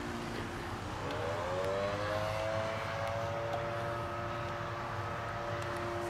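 Gasoline engine of a large-scale RC Piper J-3 Cub model airplane running in flight. Its note rises about a second in and then holds steady.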